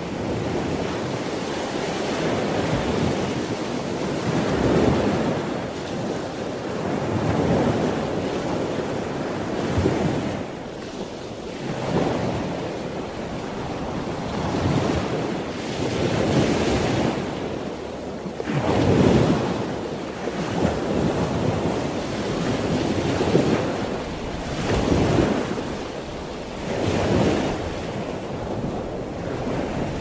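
Ocean surf: waves breaking and washing up a beach in a continuous rush that swells and ebbs every few seconds.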